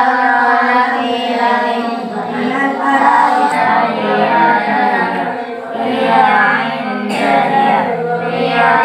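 Several young girls reciting the Quran aloud at the same time in a melodic chant, their voices overlapping into a steady many-voiced murmur of recitation.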